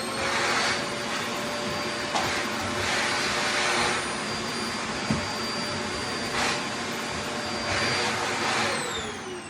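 Vacuum cleaner running, its motor whine settling to a steady pitch just after the start while the rush of air swells and fades several times, with a few light knocks. Near the end the motor winds down, its whine falling in pitch as it is switched off.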